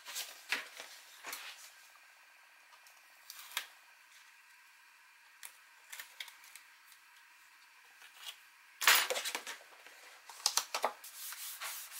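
Pieces of cardstock being handled and set down on a tabletop: scattered light taps and paper rustles, with louder rustling about nine seconds in.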